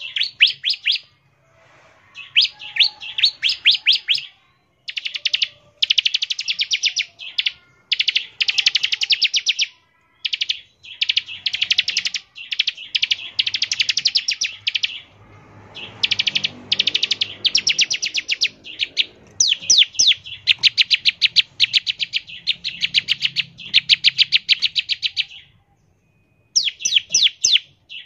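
Bar-winged prinia (ciblek) singing in its 'ngebren' style: loud, rapid trilled phrases of quick repeated notes, each lasting one to two seconds, repeated with short pauses between them.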